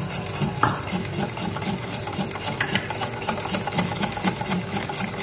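Wire whisk beating thin cake batter in a glass bowl: quick, regular strokes, several a second, the wires scraping and ticking against the glass, with one sharper knock under a second in.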